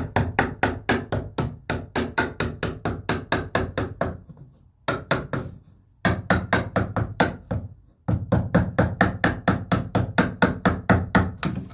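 Hammer knocking out the thin slivers of pressure-treated lumber left between saw kerf cuts: rapid, even blows about four a second, in three runs with short pauses between them.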